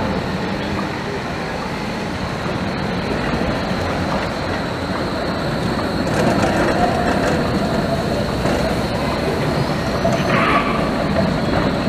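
Long articulated tram passing at street level: steady rolling noise of wheels on the rails. A steady whine comes in about halfway, with a brief higher hiss near the end.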